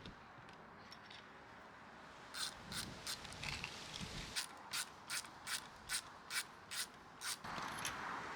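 A run of about a dozen sharp mechanical clicks, evenly spaced at roughly two a second, from computer hardware being handled during assembly. A steady rushing noise rises near the end.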